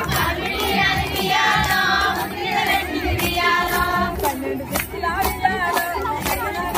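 A group of women singing a Telugu Bathukamma folk song together, over steady hand claps at about two to three a second.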